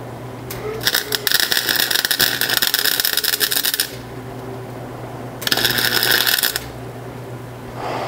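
Wire-feed welder arc welding two sprockets together, in two bursts: the first about three seconds long starting about a second in, the second about a second long after a short pause. A steady low hum runs underneath.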